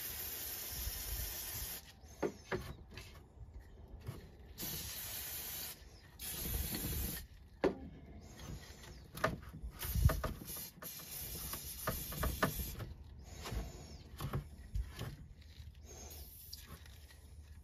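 Aerosol spray-paint can hissing in several short bursts, with light clicks and knocks of handling between them. The can is running low on gloss red enamel.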